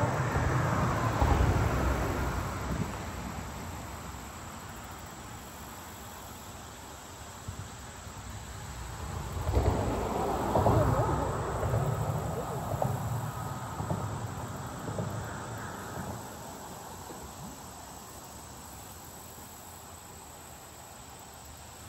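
Steady high-pitched insect chorus in summer countryside. Louder, low rumbling noise comes in near the start and again from about ten to sixteen seconds in, then fades away.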